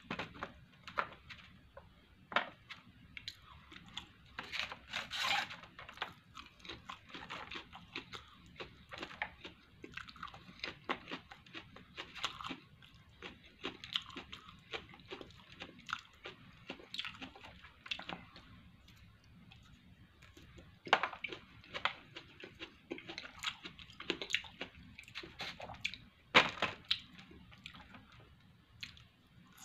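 A person eating close to the microphone: chewing, with irregular small clicks of wooden chopsticks against a plastic bento tray.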